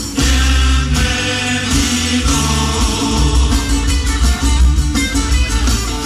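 Live folk music: a group of men singing together, accompanied by plucked lutes and guitar.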